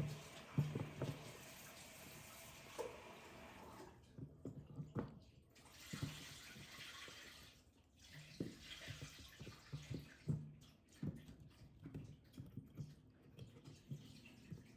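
Water running from a kitchen tap into a sink in spells that stop and start, under irregular knocks and clatter of things being handled and set down.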